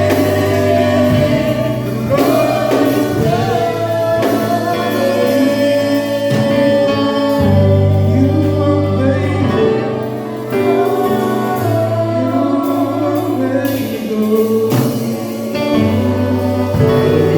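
Church worship team and choir singing a gospel song over steady instrumental backing with sustained bass notes.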